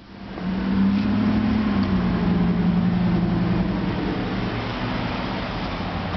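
A custom motorcycle's V-twin engine running, pitched up a little in the first two seconds, then settling to a steady idle.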